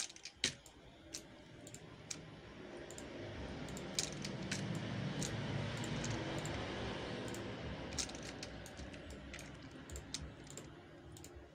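Computer mouse and keyboard clicks, scattered and sharp, as vertices are shift-clicked and the F key is pressed. Under them a low rushing background noise swells for a few seconds in the middle and fades.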